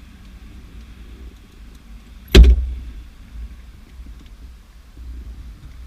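A single sharp knock about two and a half seconds in, dying away over about half a second, over a low rumble.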